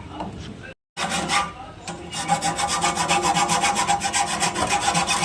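Rapid, even back-and-forth rasping of a hand tool working metal during a fridge compressor replacement, about six strokes a second. It starts about two seconds in, after a short cut to silence.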